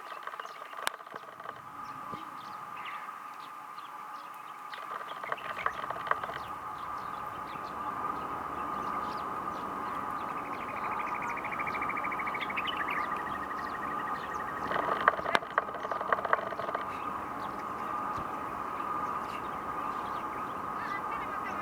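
Birds chirping and calling over a steady high drone, with a rapid trill a little after the middle.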